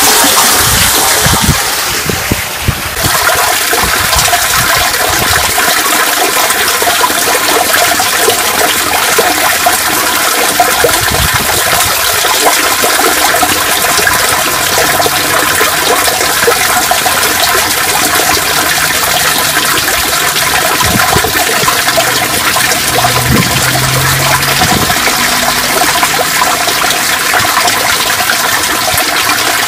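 Stormwater pouring down into a street drain well beneath a cast-iron grate, a steady gushing and trickling splash. The sound changes character about three seconds in.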